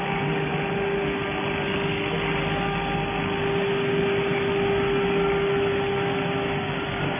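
Robotic laser welding machine running as it welds a seam: a steady hum with one constant mid-pitched tone over an even hiss.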